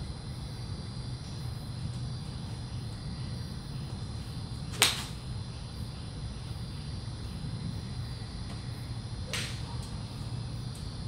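Golf iron striking a ball off a driving-range hitting mat: one sharp click about five seconds in. A fainter, similar strike comes near the end, over a steady low hum.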